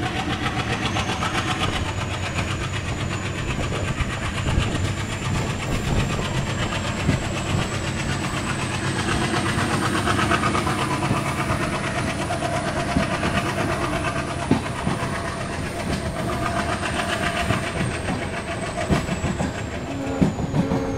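ALCO WDM-3A diesel locomotive running steadily with a train in motion, its 16-cylinder engine sound mixed with wheel and rail noise. A thin high whine rises slowly and falls away near the end.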